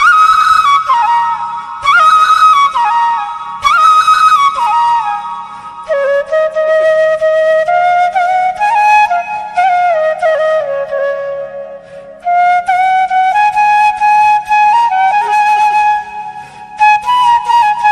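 Bamboo flute (bansuri) playing a folk-style melody of held and sliding notes over a steady low drone.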